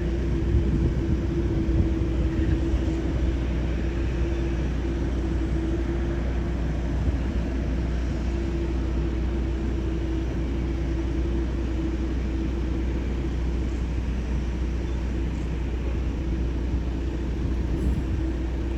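Jet airliner engines running steadily, a constant whine over a broad rumble that neither rises nor fades.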